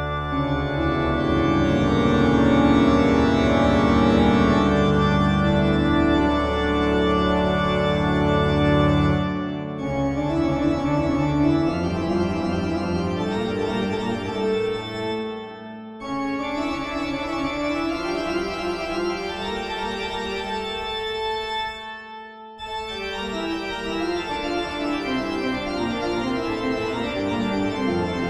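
Organ music: sustained chords with a moving line over them, briefly breaking off about ten, sixteen and twenty-two seconds in.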